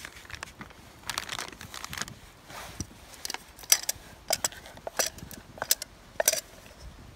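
Hands rustling in flour on a wooden board, then a run of sharp clicks and knocks as a small metal cook pot is tipped and scraped out over the board.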